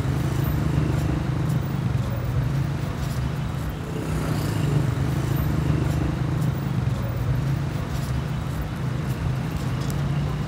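Steady hum of city traffic: car engines and tyres on busy roads.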